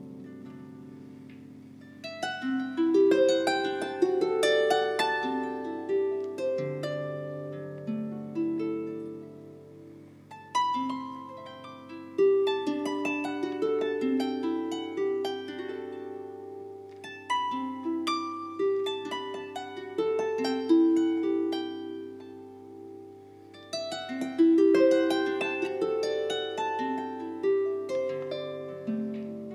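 Solo harp music: strings plucked by hand in phrases of melody over ringing bass notes. The notes die away twice before the next phrase begins.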